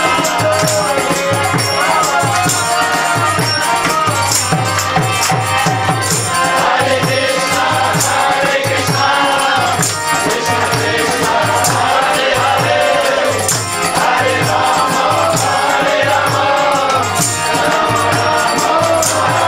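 Kirtan: a group of voices chanting a devotional song together over a steady, repeating drum beat and a jingling tambourine.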